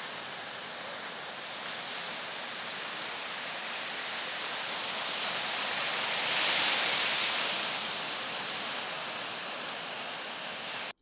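Ocean surf: a steady rush of waves breaking, swelling to its loudest about two-thirds of the way through, then cutting off abruptly just before the end.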